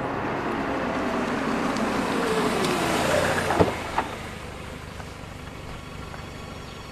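A car drives up, its sound swelling and its pitch falling over about three seconds, then two sharp clunks about half a second apart as the taxi's door is opened. A quieter steady background follows.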